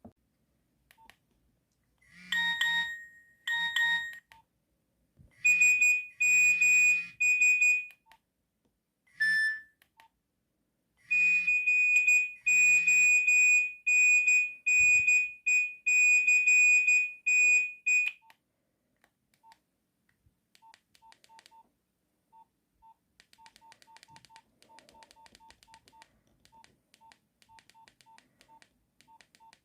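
Nokia 1110i monophonic alert tones played one after another. A quick double beep comes first, then a run of short high beeps, a single blip, and a longer pulsing run of high beeps lasting about seven seconds. The last third holds only faint scattered ticks.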